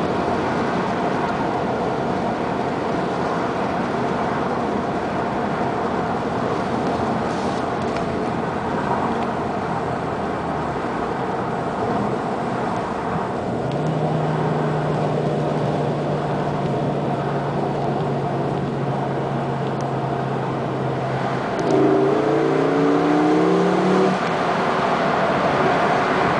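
Car road and engine noise heard from inside the cabin at speed. A steady engine drone comes in about fourteen seconds in. From about twenty-two seconds in the engine note rises in pitch and gets louder as the car accelerates.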